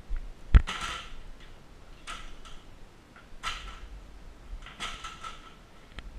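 Metal step ladder being carried and handled: a sharp knock about half a second in, then scattered light knocks and rustling.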